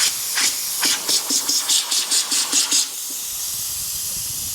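Air hissing steadily out of a motorcycle tire through a nail puncture that has just been drilled out to a larger hole. For the first three seconds a quick run of short, scratchy puffs rides on top of the hiss, then the hiss goes on alone.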